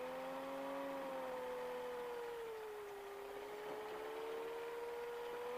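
CGS Hawk ultralight's engine running steadily while the plane taxis over soft sand, a single humming tone that sags a little in pitch around the middle and comes back up.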